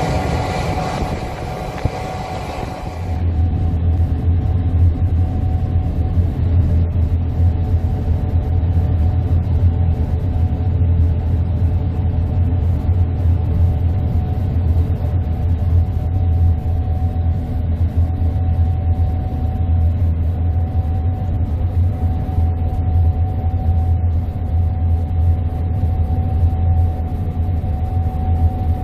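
Gleaner S98 combine harvester running steadily at work, a heavy low drone with a constant whine over it. About three seconds in the sound shifts abruptly: the high end drops away and the low drone grows louder.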